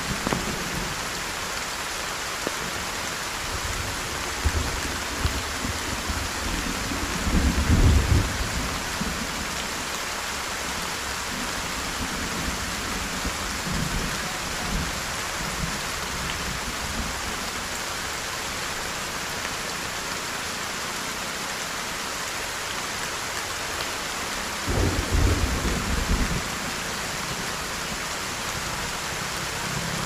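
Heavy rain falling with a steady, even hiss. Two short, louder low rumbles break through, one about a quarter of the way in and one near the end.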